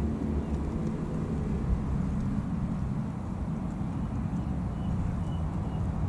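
Steady low rumble of outdoor background noise, with a few faint short high peeps near the end.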